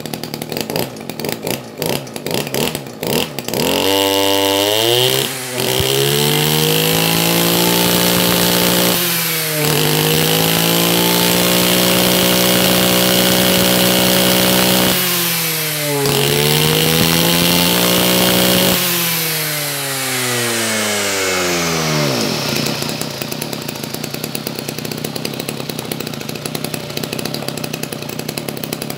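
Kioritz 2326G brushcutter's 23 cc two-stroke engine idling with a fast putter, then revved up on the squeeze throttle. It is held at high speed three times with two brief dips between, and falls back to a steady idle about two-thirds of the way in.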